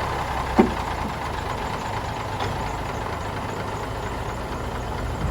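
Large diesel engine idling steadily just after being started. A single short clunk about half a second in.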